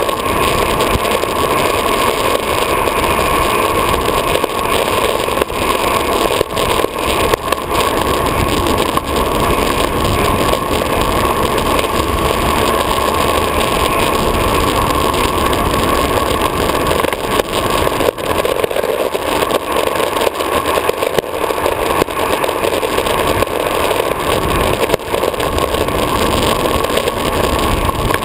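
Downhill longboard rolling fast on asphalt: steady roar of the urethane wheels on the road mixed with wind buffeting the board-mounted action camera, with a few brief knocks as the board crosses cracks and seams.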